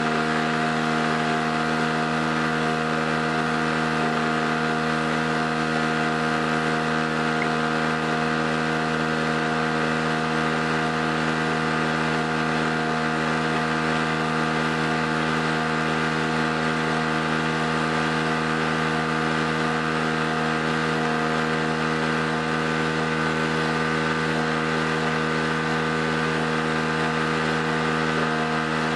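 Harbor Freight 800-watt 63cc two-stroke portable generator engine running at a steady, unchanging speed.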